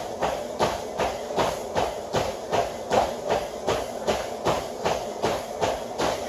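Running footfalls pounding the deck of a treadmill in a steady beat, a little under three strikes a second, over the treadmill's running belt.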